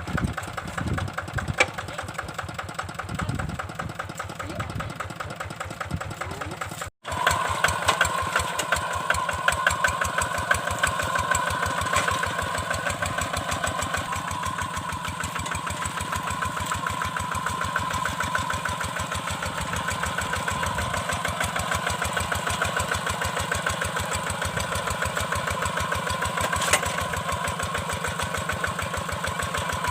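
Single-cylinder diesel engine of a Kubota two-wheel hand tractor running steadily with a rapid, even beat. The sound cuts out for an instant about seven seconds in and resumes, after which a steady whine sits above the engine beat.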